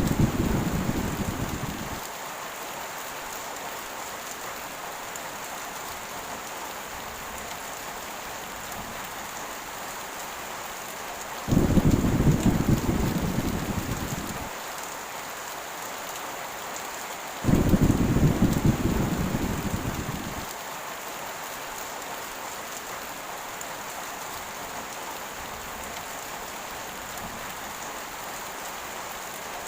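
Heavy rain falling steadily, with thunder rumbling. The tail of one roll fades out just as the stretch begins, and two more rolls break in abruptly about a third and about three fifths of the way through, each dying away over about three seconds.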